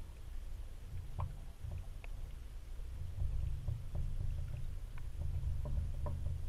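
Low, steady underwater rumble with a few faint scattered clicks.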